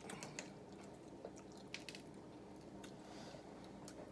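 Faint wet squishing and a few small, sharp clicks from boiled crawfish shells being broken and peeled, with soft eating sounds.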